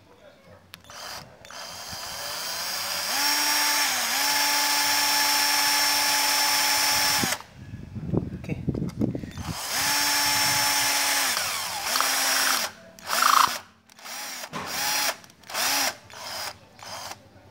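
MODERN cordless drill boring a hole through a thin piece of spoon metal: a steady motor whine with the high scrape of the bit cutting metal for about four seconds, then a shorter run. Near the end it is pulsed in several short trigger bursts.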